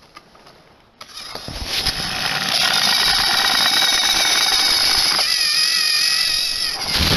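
Battery-powered motorised toy train engines running on plastic track, a steady whirr of small electric motors and gears with a high whine. It starts about a second in after a brief near-quiet moment.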